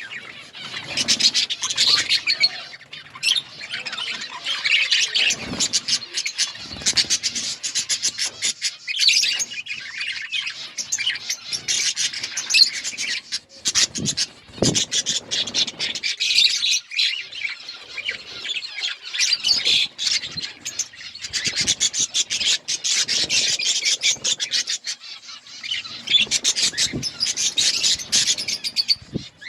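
A flock of budgerigars chirping and chattering together without pause, a dense mass of overlapping calls, with a few soft knocks among them.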